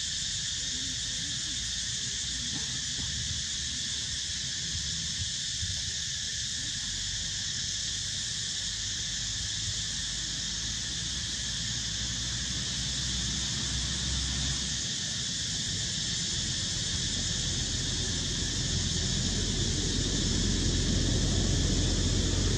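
Steady chorus of insects, a high, even drone that does not let up. Under it a low rumble grows louder over the last few seconds.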